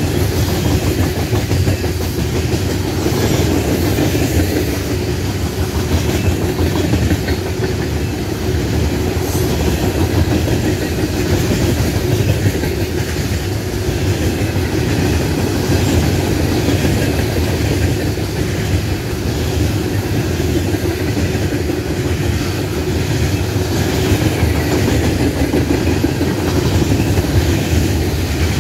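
CSX coal hopper cars rolling past close by: a steady loud rumble of steel wheels on rail, with the clickety-clack of wheels clattering over the track.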